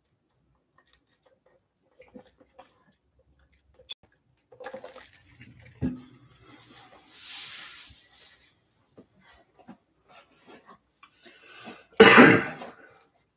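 A person coughing once, a short loud cough near the end, after a few faint clicks and rustles and a breathy hiss.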